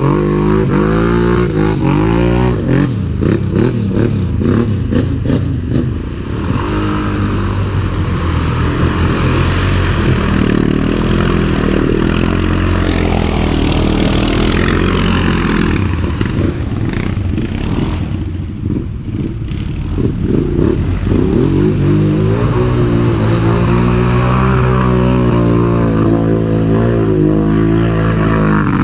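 Side-by-side UTV engine running and revving, its pitch rising and falling again and again as the throttle is worked, with scattered knocks and rattles.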